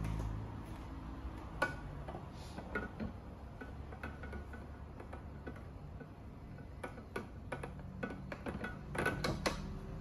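Scattered light clicks and taps of hands handling a Thermomix TM6 kitchen machine and its lid, with a quick cluster of louder clicks near the end, over a low steady hum.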